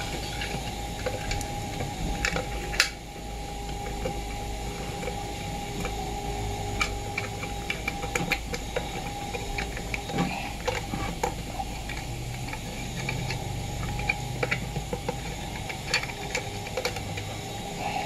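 Small scattered clicks and light knocks of a thermostat sensor's metal clip, its plastic cover and spade-terminal wires being handled and fitted onto a coffee maker's heater plate. A steady low hum runs underneath.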